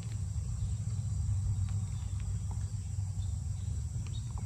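Steady high-pitched drone of insects over a steady low rumble.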